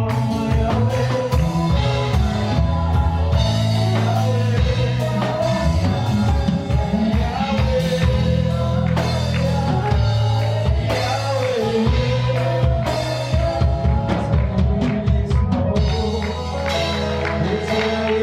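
Live church worship band playing: drums over sustained low bass notes, with a wavering melodic line above.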